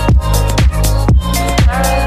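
Electronic dance music with a steady kick drum about twice a second over a sustained bass line.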